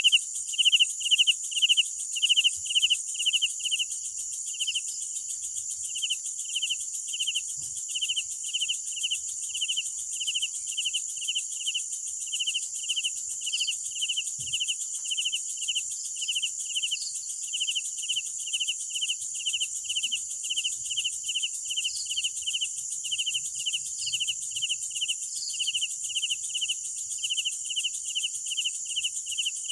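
Crickets chirping at night: one cricket repeats short, even chirps about twice a second, over a continuous high-pitched trill of other insects.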